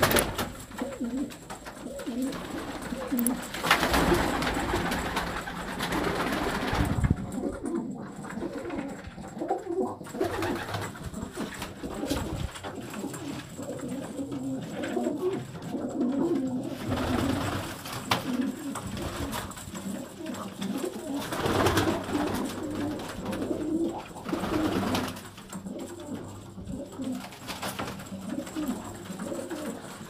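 Several domestic pigeons cooing, their low warbling coos overlapping one another without a break.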